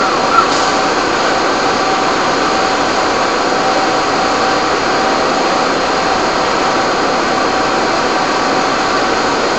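Steady, even roar of fire engines running their pumps to feed hose and ladder streams, with one short click about half a second in.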